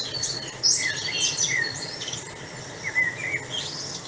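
Several birds chirping, with short overlapping calls and quick rising and falling whistles over a steady background hiss.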